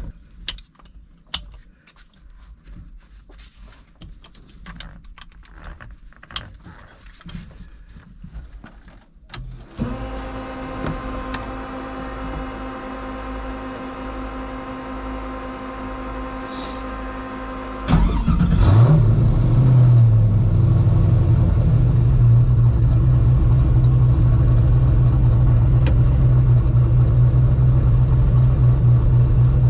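Scattered clicks and rattles of racing harness belts being fastened, then a steady electric whine begins about ten seconds in. About eighteen seconds in, the turbocharged 5.3 L LS V8 cranks, catches and settles into a steady idle.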